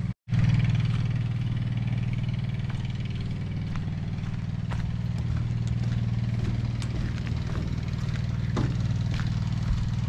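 A pump's motor running steadily, with a low, even hum that stops for a moment only at a brief break just after the start.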